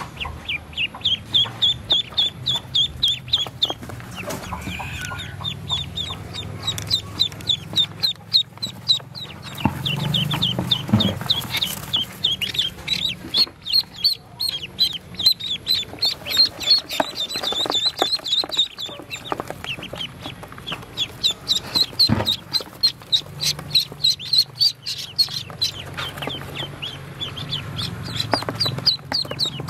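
Ducklings peeping: a steady stream of short, high-pitched calls, several a second, pausing briefly now and then, with a couple of soft knocks as they are handled.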